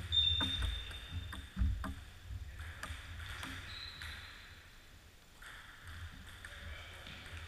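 Table tennis rally: the celluloid ball ticking sharply off the bats and the table, a string of clicks over the first three seconds or so, with a brief high squeak near the start.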